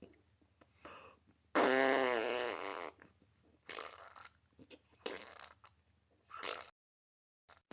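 A woman's long, loud burp lasting a little over a second, its pitch wavering and sinking slightly, followed by a few fainter short sounds.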